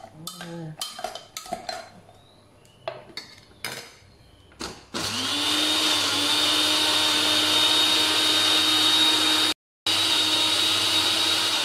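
A spoon clinks and knocks against a glass blender jar. About five seconds in, an electric countertop blender starts and runs steadily with a high whine, blending chopped carrots and mango with a little water. It drops out for a moment near the end, then carries on.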